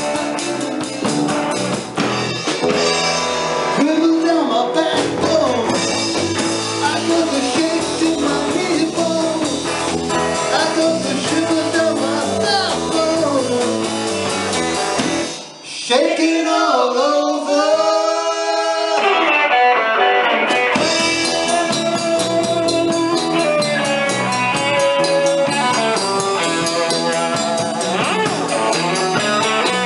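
Live rock band playing: electric guitars, bass and drum kit, with singing. About halfway through, the bass and drums stop for a few seconds, leaving only higher parts with bending notes, and then the full band comes back in.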